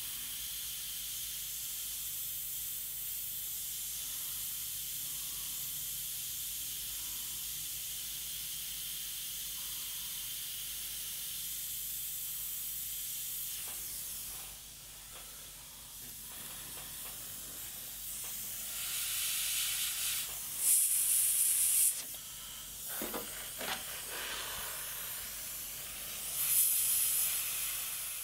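Iwata Micron airbrush spraying paint: a steady hiss of compressed air from the fine needle nozzle for about fourteen seconds, then a pause and several shorter, louder bursts of hiss.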